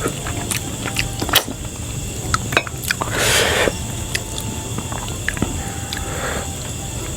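Eating sounds: chewing with scattered small clicks, and a longer noisy burst about three seconds in.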